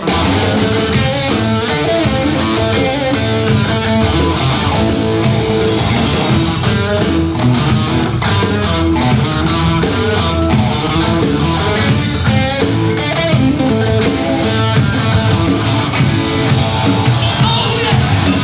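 Rock music: a full band with guitar comes in suddenly at full volume and plays on with a steady beat, with no singing.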